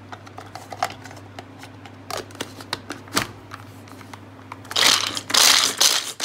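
Pull-cord hand food chopper crushing cashews and almonds: a few quick pulls near the end set the blades spinning, and the nuts rattle and crunch against the plastic bowl. Before that, only a few faint clicks from handling the bowl.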